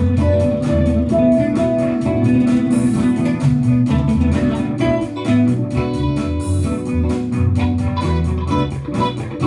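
Electric guitar jamming: a lead line of picked notes played over a looped guitar rhythm part, in a steady rhythm.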